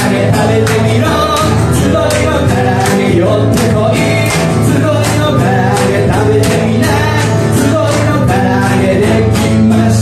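Live band performance: a singer with strummed acoustic guitar over a bass guitar line and a steady beat about twice a second.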